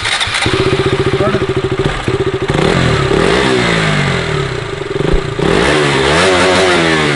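Old BS4-compliant KTM Duke 200 single-cylinder engine idling, then revved up twice, the pitch rising and falling back each time.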